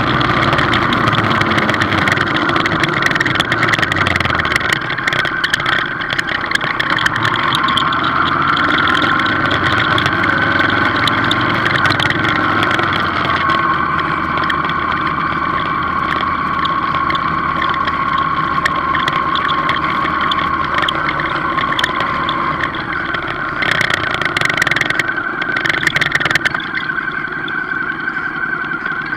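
Motorcycle engine and road noise at low speed in slow traffic, recorded from the rider's own bike: a steady run with a whine whose pitch drifts slowly. A few sharp crackles come near the end.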